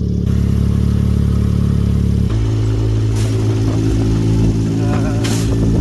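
Dune buggy engine running as the buggy drives along a dirt road; its note shifts abruptly about two seconds in.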